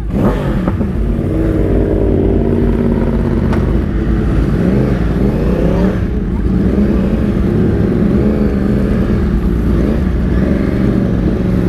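Superbike inline-four engines running just above idle, with repeated throttle blips that rise and fall in pitch, revved for show.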